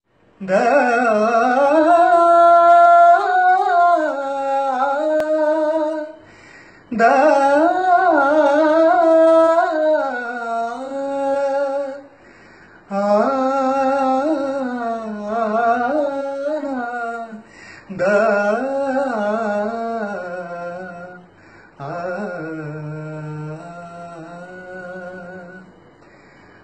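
A man singing a slow Malayalam film song unaccompanied, in five long, held phrases separated by brief pauses for breath.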